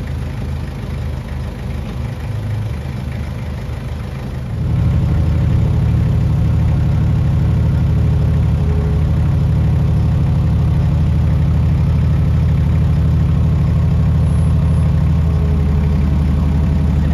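Engine idling close by, stepping up to a louder steady run about four and a half seconds in.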